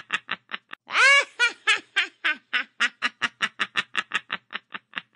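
A rapid, cackling laugh: short high notes about five a second, with one longer rising-and-falling whoop about a second in, ending abruptly near the end.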